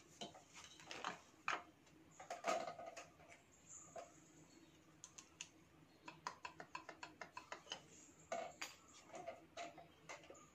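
Faint scattered clicks and light knocks of submersible pump stage parts being pushed down onto the pump shaft and seated on the stack, with a quick run of small ticks past the halfway point.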